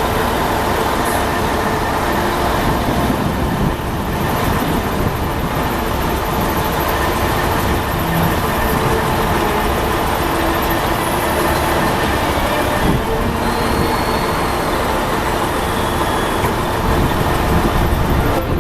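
Heavy diesel vehicle engine running steadily and loudly, typical of the tracked welding unit or the truck during loading onto a lowboy trailer.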